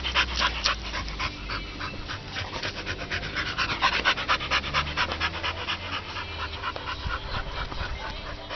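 American Staffordshire Terrier panting fast and hard close to the microphone, several quick breaths a second, growing weaker in the last couple of seconds.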